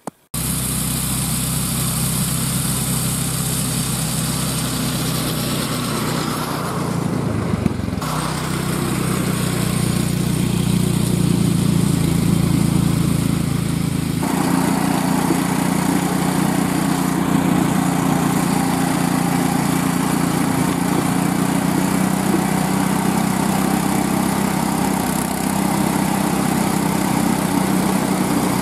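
Small gas engine of a homemade tracked snow sled running steadily; its note dips briefly about seven seconds in.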